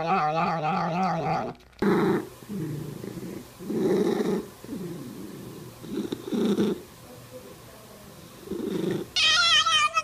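Domestic cats: a low, wavering, drawn-out cry for the first second and a half, then a loud rasping purr swelling with each slow breath about every two seconds, then a high wavering kitten meow near the end.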